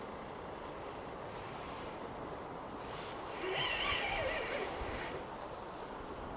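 Spinning reel buzzing for about two seconds, about three seconds in, while a hooked pike is being played, either line running off the drag or the reel being cranked, over a steady outdoor hiss.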